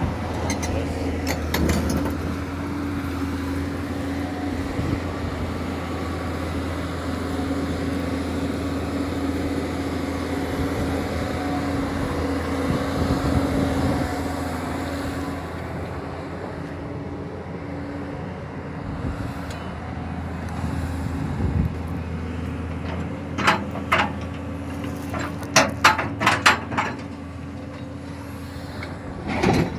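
Excavator's diesel engine running under load while its hydraulic breaker hammers, a steady rattling drone. About three-quarters of the way through, a cluster of sharp clanks.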